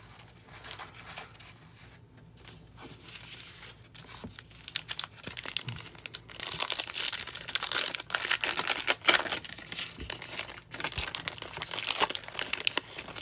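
Foil trading card pack wrapper being torn open and crinkled in the hands. Faint handling at first, then loud, dense crinkling and tearing from about five seconds in until near the end.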